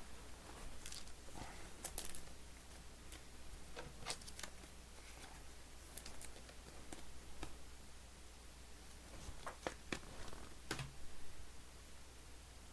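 Faint clicks, taps and scrapes of trading cards being handled and slid one past another, scattered every second or two.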